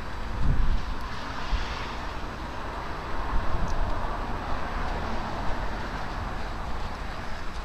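A passing motor vehicle: a steady rush of tyre and engine noise that builds about a second in and dies away near the end.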